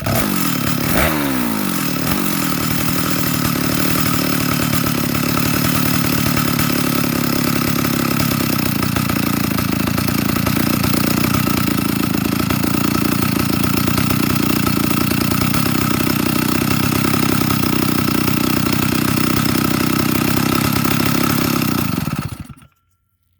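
Vintage Stihl 075 two-stroke chainsaw, on its first run in years, revving up and down briefly, then running steadily for about twenty seconds before cutting off suddenly near the end.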